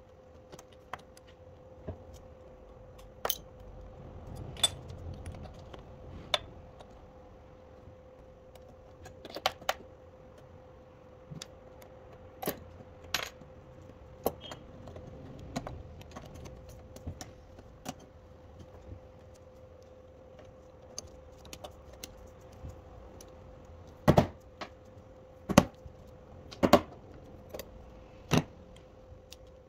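Sharp, scattered clinks and clicks of glass pieces, lead came and horseshoe nails being handled and set into a leaded stained-glass panel on a bench, with a cluster of louder knocks near the end. A faint steady hum runs underneath.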